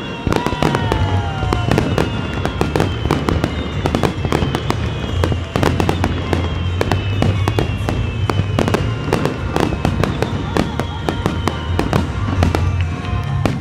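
A rapid-fire barrage of aerial firework shells and low mines bursting one after another: a continuous stream of loud, sharp bangs, with several long whistles sliding slowly down in pitch.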